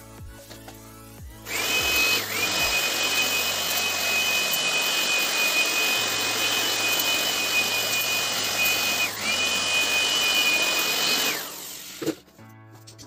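Handheld electric air blower switched on and running at full speed with a steady high whine. The whine dips briefly twice, and near the end the motor is switched off and winds down.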